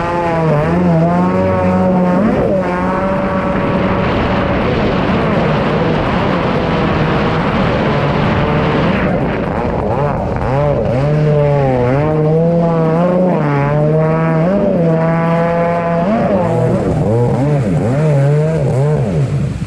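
Stand-up jet ski engine at racing throttle, heard from on board, its pitch repeatedly dipping and climbing again as the throttle is eased and reopened through the turns, over the hiss of water spray.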